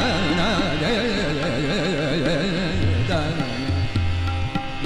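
Background music in Indian classical style: a voice sings a wavering, heavily ornamented melodic line over a steady low drone.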